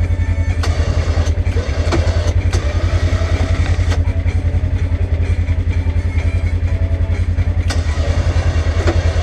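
Polaris General XP side-by-side engine running steadily with a fast low pulse, with several sharp ticks over the top.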